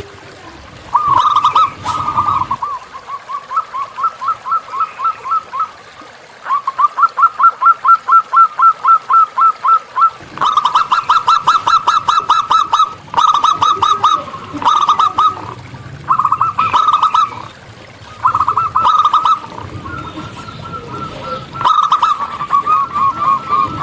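Zebra doves (perkutut) singing: long runs of short, rapid cooing notes, about four to six a second, in bursts of a few seconds, with runs from more than one bird overlapping.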